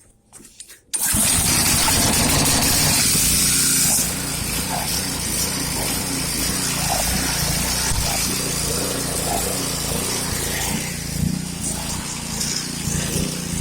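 Gas engine of a 3000 PSI Karcher pressure washer starting about a second in, then running steadily. A loud hiss runs alongside it at first and eases about four seconds in.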